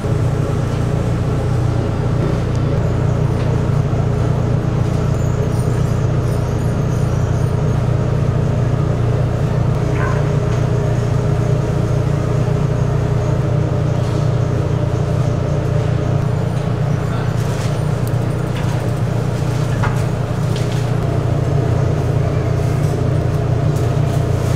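A steady low mechanical hum that sets in suddenly and holds unchanged, with a few faint clicks.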